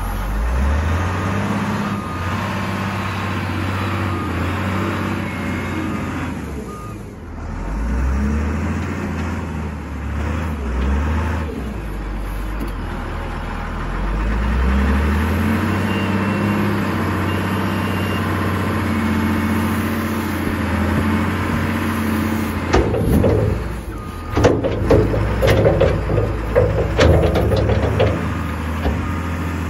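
Caterpillar IT28G wheel loader's diesel engine running, revving up and down several times as the bucket loads and lifts dirt. Over the last several seconds comes a run of loud, irregular clattering and knocks as the bucket is tipped and dumps its load.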